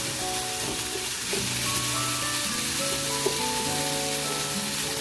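Vegetables frying and sizzling in oil in a non-stick pan, stirred with a wooden spatula that knocks lightly against the pan now and then. Background music with held notes plays over it.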